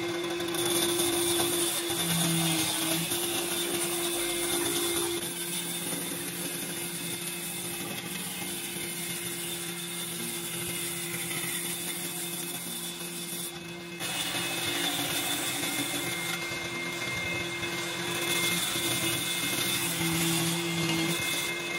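Bandsaw running and cutting a glued-up laminated wood strip: a steady motor hum under the hiss of the blade in the wood, dipping briefly about fourteen seconds in.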